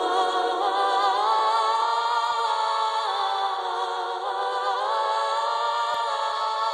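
Background music: voices singing unaccompanied in long held notes that move slowly from one pitch to the next, in the manner of a choir.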